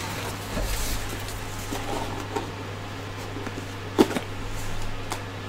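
A cardboard box being handled and lifted: light rubbing and scraping, with one sharp knock about four seconds in.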